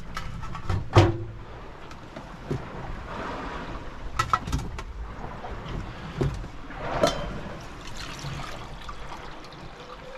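Sea water rushing and sloshing along a sailing yacht's hull under way, with several sharp knocks and clatters, the loudest about a second in and another near seven seconds.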